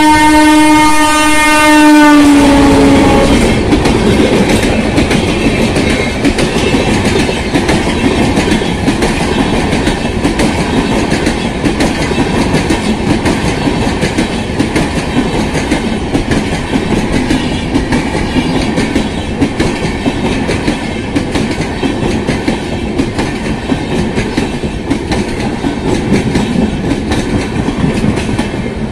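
Dhauli Superfast Express passenger train passing close by at speed. It opens with a loud horn blast that slides down in pitch and stops about three seconds in, followed by the steady rumble and clickety-clack of its coaches rushing past.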